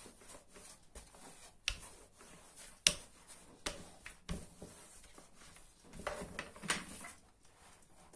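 A plastic rolling pin rolls out dough on a wooden board, with scattered light knocks and clicks of the pin against the board. The sharpest knock comes about three seconds in.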